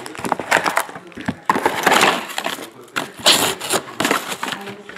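Foil trading-card pack wrappers crinkling and rustling in irregular crackles as they are handled and stacked.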